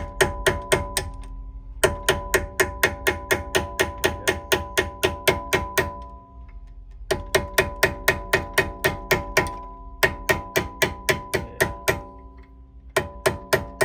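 Rapid light hammer taps, about five a second, driving a new brake pad retaining pin into a red fixed brake caliper, each tap ringing like struck metal. The taps come in runs of a few seconds with short pauses, and the pin needs harder taps because its plastic bushing seals tight.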